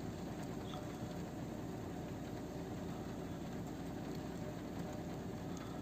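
Steady outdoor background noise, a low even rumble with no distinct events.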